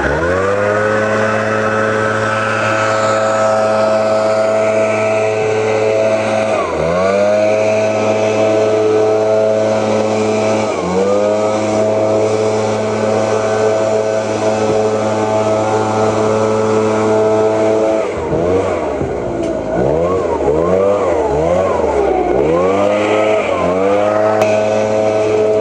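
Small two-stroke engine of a gas-powered garden tool running at high throttle. It drops briefly toward idle and comes back up twice, then is revved up and down repeatedly over the last several seconds.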